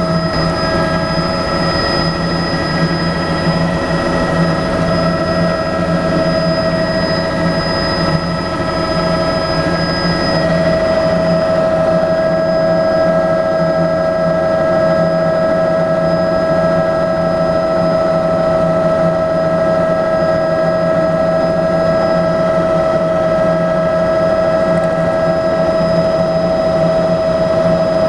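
Bell 206B-III JetRanger III helicopter in flight, heard from inside the cabin: the Allison 250 turboshaft's steady whine over the low drone of the rotor. It gets a little louder from about ten seconds in.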